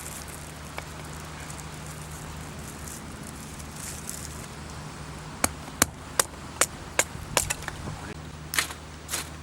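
Campfire crackling: a run of sharp, irregular pops from the burning wood starting about halfway through, over a steady low hum.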